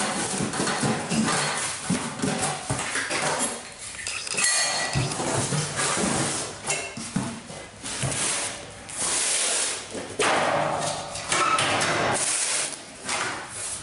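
Cardboard box being opened and handled, flaps rustling and scraping, as a finned metal evaporator coil is lifted out and set down on a metal workbench with repeated knocks and clinks.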